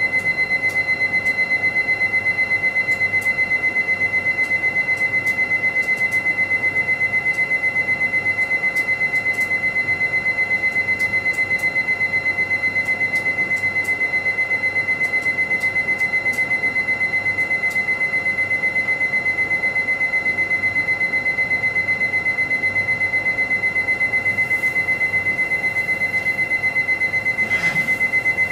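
A steady electronic beeping tone, high and quickly pulsing like an alarm, held unbroken. A short falling sweep comes in near the end.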